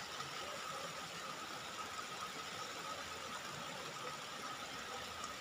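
Faint steady background hiss with a thin, steady high hum running through it; no distinct sounds stand out.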